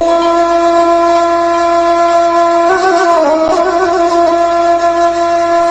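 Background music played on a wind instrument, holding a long steady note that moves to a new pitch about halfway through.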